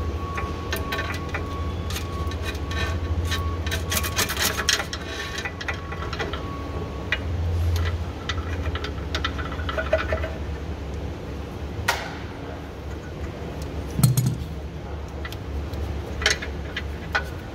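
Gloved hands working on a forklift's steel panel and wiring: scattered small clicks, taps and rubbing over a steady low hum, with a thin steady high tone that stops about seven seconds in.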